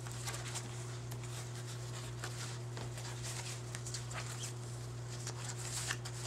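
Fabric sample swatches rustling softly as they are flipped over by hand, with a few faint taps, over a steady low electrical hum.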